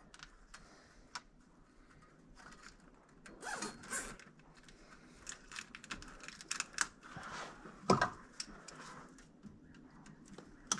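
Hand work in a tractor's engine bay: irregular small clicks and rattles with rustling, and one louder knock about eight seconds in.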